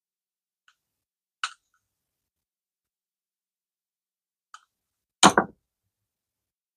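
A few faint metal clicks as a screwdriver works the side-plate screws of a baitcasting reel. About five seconds in comes a louder double knock as the screwdriver is set down on the bench mat.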